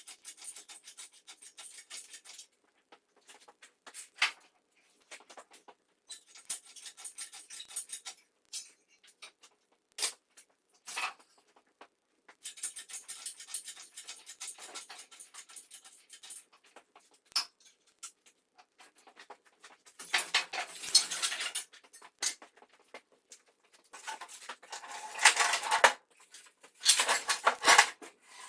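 Hand scraping on a steel car frame, in stretches of a couple of seconds, with scattered clicks and knocks between them.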